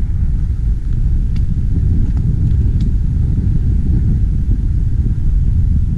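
Wind buffeting the microphone: a loud low rumble that surges and dips.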